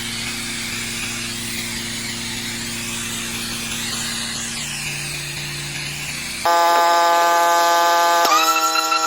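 Pressure washer running steadily, with a constant machine hum under the hiss of water spray. About six and a half seconds in it cuts off abruptly and music of long held, flute-like notes starts.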